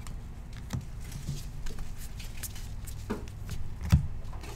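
Baseball cards being slid and flicked one by one through gloved hands: light, papery ticks and rustles, with a sharper tap about four seconds in, over a low steady hum.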